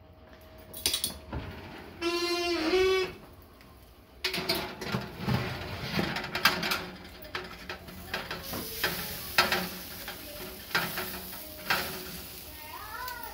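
Steaks sizzling on a metal broiler pan under the oven broiler, with metal tongs clicking and scraping on the pan as the steaks are turned. The sizzle and clicks start about four seconds in.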